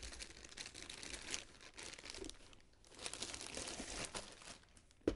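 Clear plastic bag crinkling and rustling as a boxed toy is pulled out of it, with a single sharp knock near the end as the box is set down on the table.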